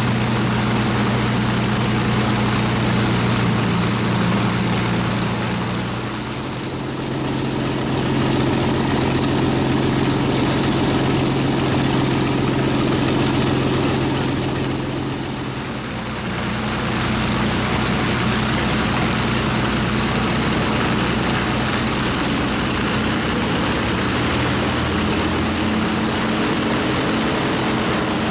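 Avro Lancaster's Packard-built Rolls-Royce Merlin V-12 piston engines running steadily on the ground, a loud, even drone with a steady low pitch. The level dips briefly about six seconds in and again around sixteen seconds.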